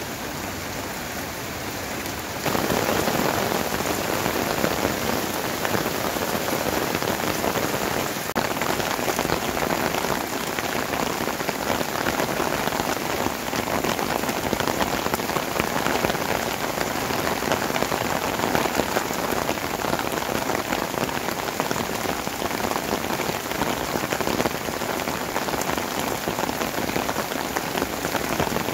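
Heavy shower rain falling on corrugated roof sheets, a dense steady patter. About two and a half seconds in it jumps louder.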